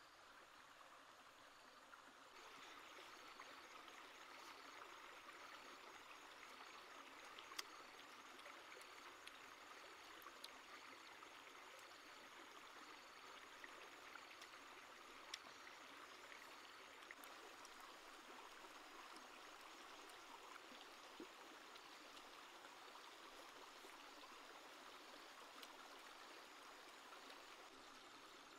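Faint, steady running water of a small stream. A soft high note repeats about every three-quarters of a second, and there are a few light clicks.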